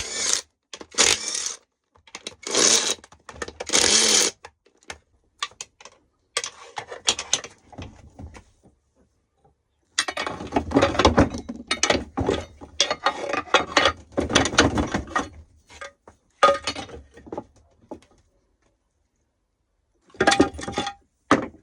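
Socket ratchet wrench clicking in short spells as gearbox housing bolts are undone, with metal tools and parts clinking between spells.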